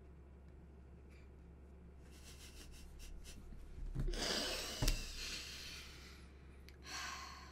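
Stifled laughter from two people: breathy exhalations and snorts muffled by a hand over the mouth, loudest about four to six seconds in, with a short thump near the middle.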